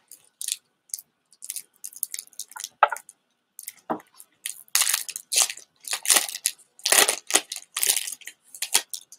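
Foil trading-card booster pack wrapper crinkling and tearing open in irregular crackly bursts, the loudest a few seconds in, as the cards are pulled out.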